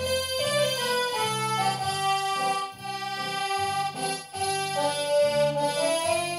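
Roland FR-8x digital V-accordion playing a song: a melody on the right-hand keys over left-hand bass notes alternating with chords.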